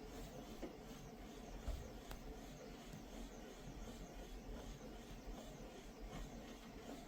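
GUGTTR electric under-desk elliptical pedal exerciser running with a faint, steady mechanical hum.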